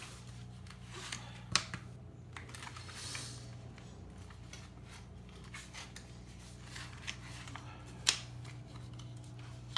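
Scattered sharp clicks and light handling noises, with two louder clicks about a second and a half in and about eight seconds in, over a steady low hum.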